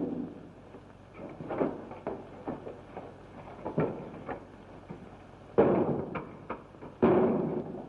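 A wooden door and its planks being battered and broken through: a run of knocks and thumps, then two loud crashes with splintering near the end.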